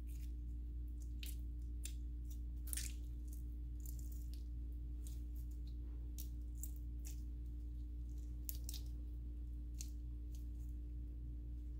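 Stiff clear jelly slime squeezed and pulled apart by hand, making irregular sticky clicks and pops, over a steady low hum.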